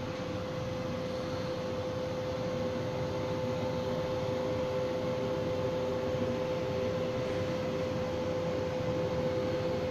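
Fronus PV7200 hybrid solar inverter running while feeding about 1.9 kW of solar power into the grid: a steady hum with an airy fan rush, growing a little louder as the microphone comes closer.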